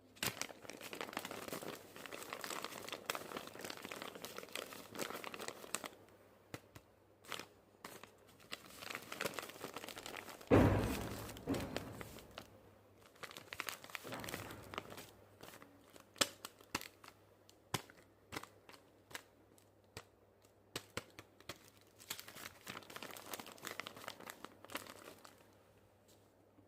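Paper blind bag being handled and opened: paper crinkling and tearing, with many small sharp clicks and rustles in stretches. One loud thump about ten seconds in.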